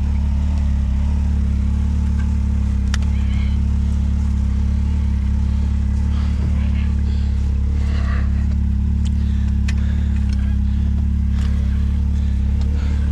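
Can-Am Maverick side-by-side's engine running at a steady pitch, a constant low drone heard from on board, with a few light clicks over it.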